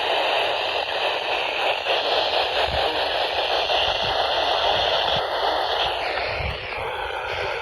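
Radio static: a steady hiss of noise from a radio receiver with no clear speech, its tone shifting slightly about six seconds in.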